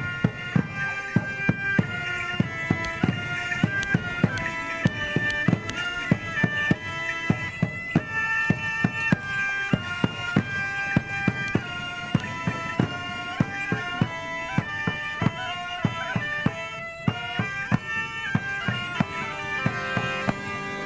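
Bagpipes playing a medieval-style tune over a steady drum beat.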